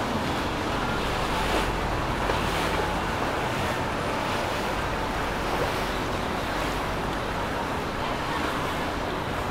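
Steady rushing wash of water from a large motor yacht's bow wave and hull as it moves along the river, mixed with wind on the microphone.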